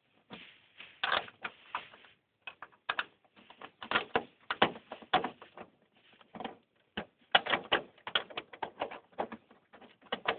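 Irregular sharp clicks and clacks of hand tools and bolts being worked while fitting hood spacers and longer bolts to a Jeep Cherokee XJ hood.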